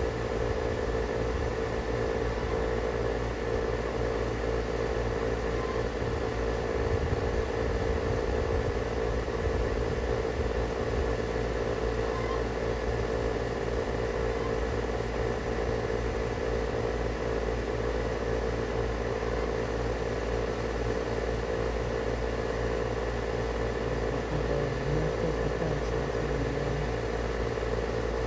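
A steady machine hum at an even level, like a motor or engine running.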